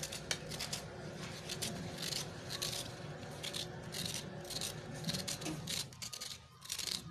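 Kitchen knife scraping the ridged skin off a bitter gourd (karela), in repeated short scraping strokes, about two or three a second.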